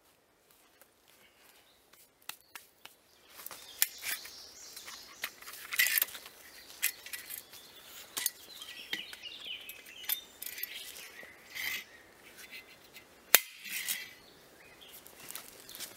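Folding bow saw being handled and opened out, giving scattered metal clicks and clinks, with one sharp click near the end. Birds chirp faintly in the background.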